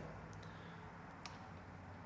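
Quiet room tone with a steady low hum and two faint, short ticks, one about a third of a second in and one about a second and a quarter in.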